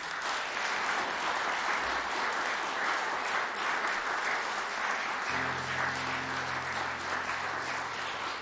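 Audience applauding steadily. A low steady hum comes in about five seconds in.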